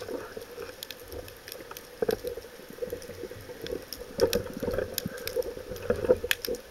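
Underwater sound picked up by a diver's camera: a steady water noise with many scattered sharp clicks and crackles, growing louder about two seconds in and again for a stretch past the middle.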